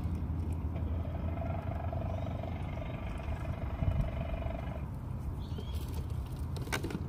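Low, steady rumble of traffic, with an engine drone that holds for a few seconds in the middle and then fades. A few sharp clicks come near the end.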